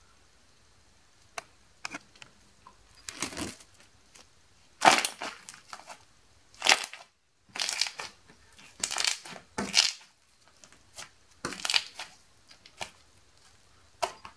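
Slime being pressed, peeled up and squeezed by hand on a tabletop: a string of short, irregular sticky squishes and crackles.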